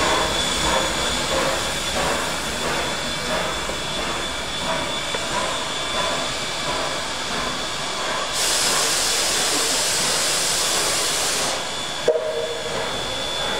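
Steam locomotive 141R 1244 at work, a steady noise with a loud hiss of steam starting about eight seconds in and lasting some three seconds, then a single sharp knock.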